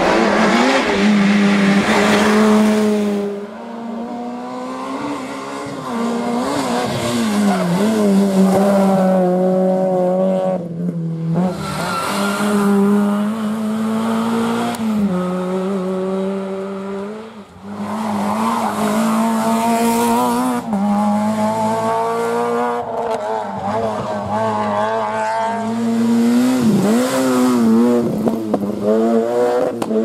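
Peugeot 106 rally cars' four-cylinder engines driven hard, revving up and dropping again and again through gear changes and lifts as one car after another passes.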